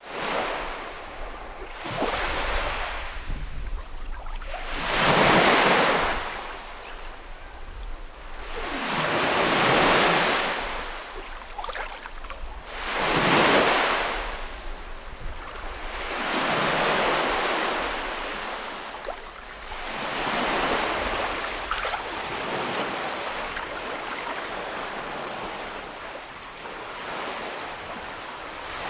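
Small waves breaking and washing up on a beach, each one swelling and falling back about every three to four seconds. The later waves are gentler.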